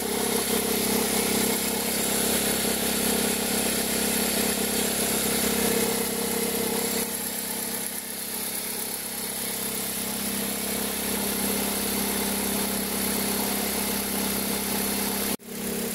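2003 Toyota Corolla engine running cold with a strong noise that comes only when the engine is cold, a steady hum with a pitched tone that eases off about seven seconds in. The mechanic traces the noise with a stethoscope to the accessory-belt area.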